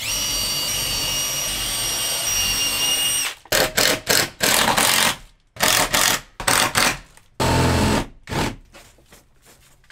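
Cordless drill running steadily with a high whine for about three seconds, then stopping and starting in a string of short trigger bursts, working overhead into the wooden roof framing of a van.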